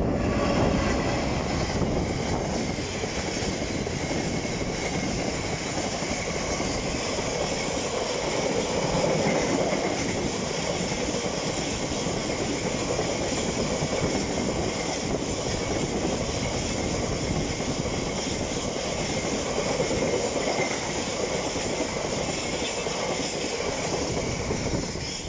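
Class 66 diesel locomotive passing close by in the first second or so, followed by a long train of tank wagons rolling steadily past, their wheels rumbling and clattering on the rails.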